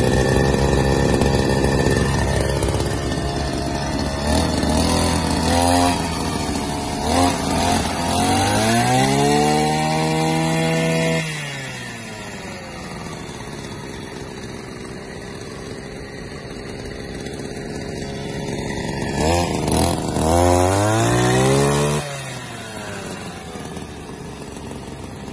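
Two-stroke petrol brush cutter engine idling, blipped briefly a few times, then twice revved to full speed with a rising pitch, held for a few seconds and dropped suddenly back to idle.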